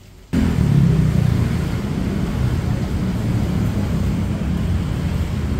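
Street traffic: a steady rumble of cars and motor scooters passing, starting abruptly just after the beginning.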